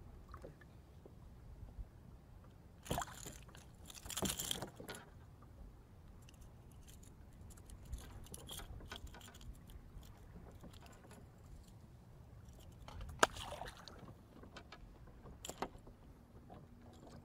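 Fishing tackle being handled aboard a kayak: bursts of light metallic jangling and clatter about three and four seconds in, then a few single sharp clicks, over a low steady rumble.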